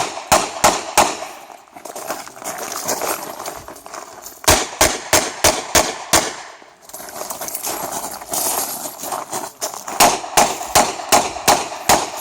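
Rapid revolver shots from a Smith & Wesson competition revolver, fired in three quick strings of about three shots a second with pauses between them.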